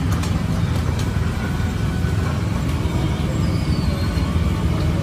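Steady low rumble of street traffic, with a few light clicks.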